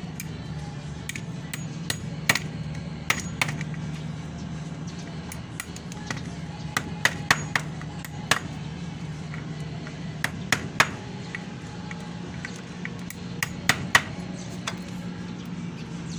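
Irregular sharp clicks and taps of small hard parts being handled and knocked during electric fan repair work, a few ringing briefly, over a steady low hum.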